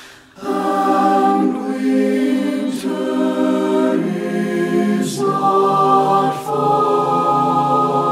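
Mixed SATB choir singing a cappella in close harmony. Sustained chords enter about half a second in, move every second or so with a few sung 's' sounds, and settle on a long held chord for the last couple of seconds.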